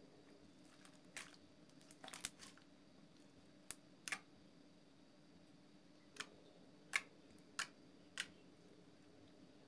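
Clear soap-and-water slime pressed and stretched by hand, giving about eight short, sharp pops and clicks at irregular intervals, with a small cluster about two seconds in.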